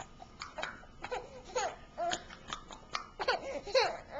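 A baby giggling in a string of short, high-pitched bursts of laughter.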